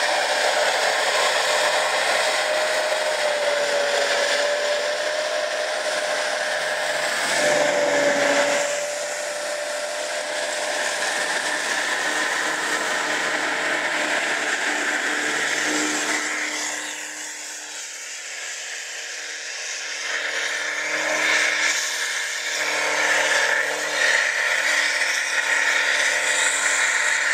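Off-road 4x4's engine running hard as it churns through deep snow and mud, a loud steady rushing noise with a held whine in the first third. It drops back twice and rises again near the end.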